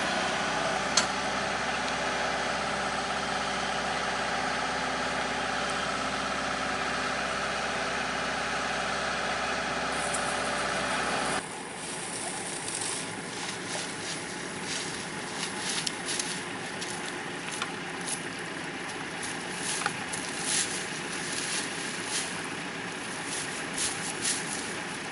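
A hydraulic excavator's diesel engine runs steadily for about eleven seconds, then cuts off suddenly. After that come quieter scattered crackles and clicks of brushwood being handled and packed between stakes at the river's edge.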